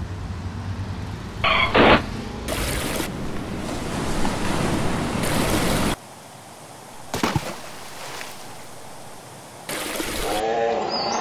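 Edited sound effects: city street traffic with a short horn-like blast about a second and a half in, then steady rushing water. Near the end a louder stretch brings a wavering pitched call.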